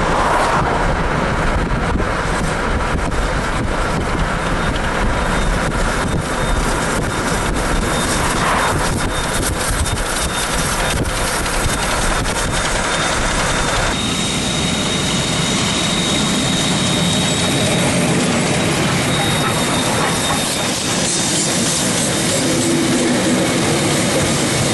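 Passenger carriages and then the steam locomotive JA1271 rolling past, a steady rumble of wheels on the rails. About halfway through it changes abruptly to a steadier hissing noise with less rumble.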